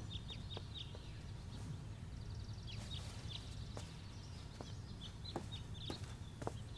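Small birds chirping in many short, quick, falling calls over a steady low hum, with scattered light clicks.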